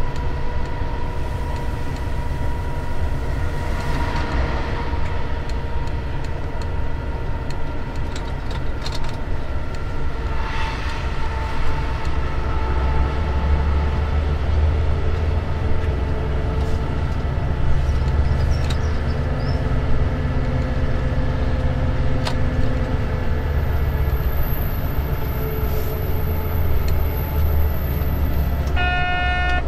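Diesel locomotive running under way, heard from the cab: a steady low engine rumble with steady whining tones over it. About a second before the end the locomotive horn starts to sound.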